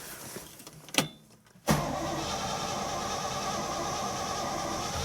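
A click, then from about two seconds in a steady run of a cold car engine being cranked by its starter while fed from a gas can; it does not fire, a fault the owner later traces to sticking ignition points.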